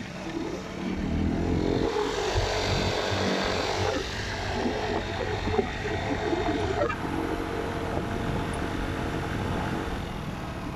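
Motorcycle engine running while riding along, its note shifting in the first part and settling to a steady note for the last few seconds.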